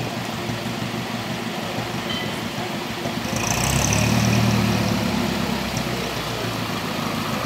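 Vintage vehicles moving slowly: a steady engine or motor hum that swells and grows loudest from about three and a half to five seconds in, as a green-and-cream double-decker passes close, then eases off.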